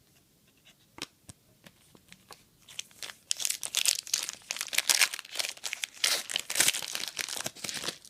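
Trading card pack wrapper being handled, then torn open and crinkled: a few light ticks, then dense, loud crinkling from about three seconds in.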